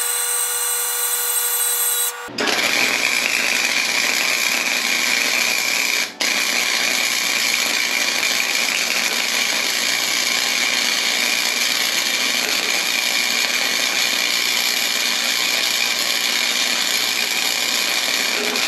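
Flux-core welding arc from a Harbor Freight Flux 125 welder burning .030 Hobart self-shielded flux-core wire, crackling steadily as a bead is laid. A steady pitched hum comes first for about two seconds, before the arc strikes. The arc drops out for an instant about six seconds in.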